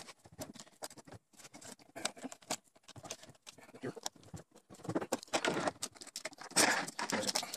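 Handling noise of a screwdriver and plastic parts at the back of a 3D printer: a run of small clicks, taps and scrapes as clips on the cable loom are prised out of their slots. There are denser stretches of scraping and rustling about five and seven seconds in.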